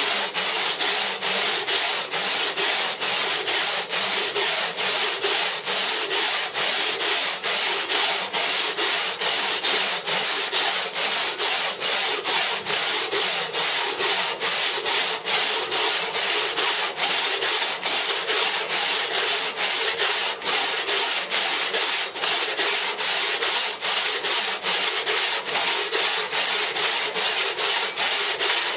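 Long toothed hand saw cutting into a block of soft Bath stone (limestone), a steady gritty rasp in back-and-forth strokes, the sound dipping at each change of direction about twice a second.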